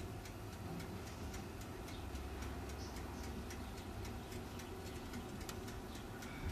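Faint, uneven ticking and crackling from a toaster oven with bone marrow roasting inside, over a low steady hum.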